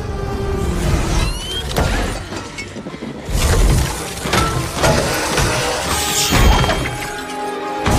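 Action-film soundtrack: a tense score under several loud crashes and shattering impacts from a fight with a large robot.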